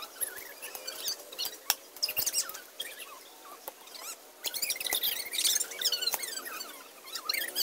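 A hoe chopping and scraping into dry grass and weeds, heard as scattered sharp clicks and rustling. High twittering chirps are busiest from about four and a half seconds in.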